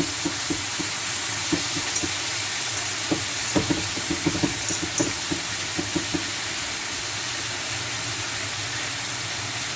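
Sauced steak sizzling on a hot grill: a steady hiss with frequent crackles and pops through the first six seconds or so, then a smoother sizzle.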